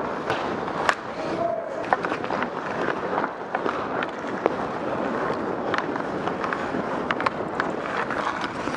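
Ice skate blades scraping and carving on rink ice, with sharp clacks of hockey sticks and pucks scattered throughout.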